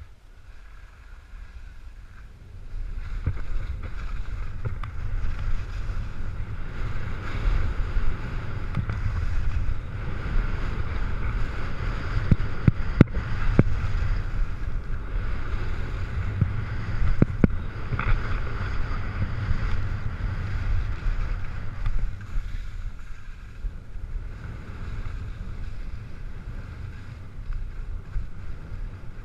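Wind buffeting the microphone over skis scraping across hard-packed snow on a downhill run, louder from about three seconds in, with a few sharp knocks partway through.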